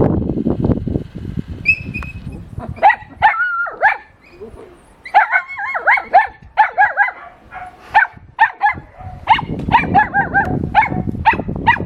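A dog yipping and whining in a quick series of short, high calls, starting about three seconds in and repeating roughly twice a second. Low rumbling noise comes before the calls and again near the end.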